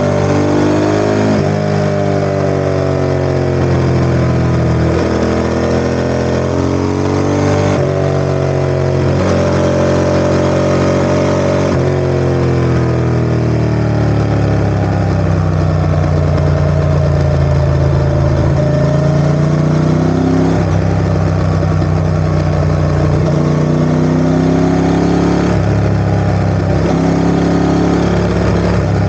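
Ducati ST4S motorcycle's V-twin engine running, its pitch sliding up and down with several abrupt jumps as engine speed changes.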